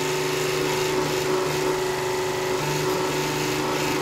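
Workshop machine motor running with a steady hum and several steady tones, with faint rubbing noises over it.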